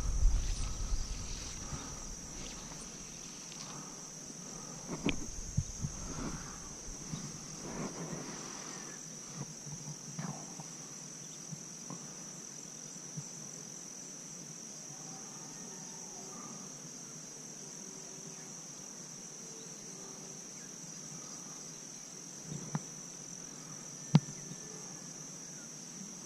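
Steady high-pitched chorus of crickets, with a few scattered knocks and taps; a sharp click near the end is the loudest sound.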